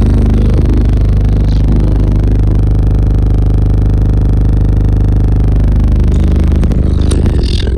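Truck's car-audio system of three Skar ZVX 18-inch subwoofers playing heavy bass at high volume, loud enough to overload the microphone, with one long held bass note in the middle.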